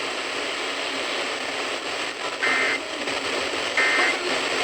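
Emergency Alert System end-of-message data bursts: two short two-tone digital screeches about a second and a half apart, over steady radio hiss, signalling the end of the alert.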